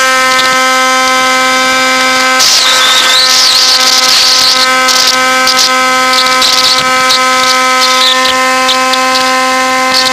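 Bixler 1.1 RC plane's electric motor and propeller whining at a steady high throttle, heard from on board the aircraft. From about two seconds in, a patchy hiss of wind rushing past the airframe joins it.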